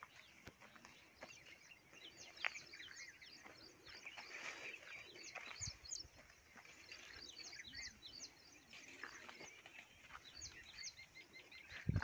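Faint outdoor ambience with many small birds chirping, short quick chirps throughout, and a soft knock or two.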